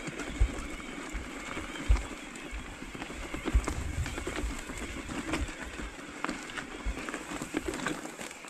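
Electric mountain bike rolling over a rough, stony mule track: tyres crunching on loose rock with frequent clicks and rattles from the bike and a few heavier thumps as the wheels strike stones. The noise eases off near the end.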